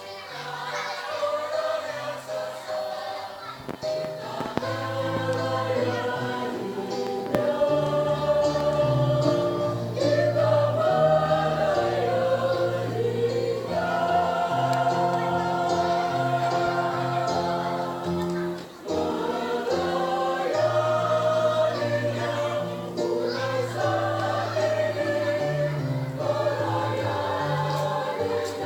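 Church choir singing a hymn in several-part harmony over low held accompaniment notes, with a short breath between phrases about two-thirds of the way through.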